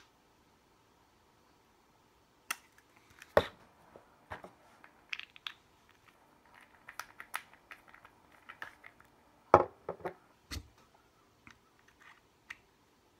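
Handling clicks and knocks from a plastic e-liquid dropper bottle being capped and a vape mod's metal atomizer top being refitted. The sounds are short and irregular, beginning a few seconds in, with two louder knocks among them.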